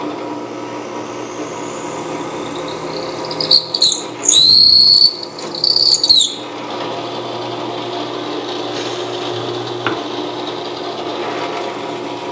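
Drill press motor running steadily while its bit bores through a thick wooden board. From about three and a half seconds in, the bit gives three loud, high-pitched squeals as it cuts into the wood, over about three seconds.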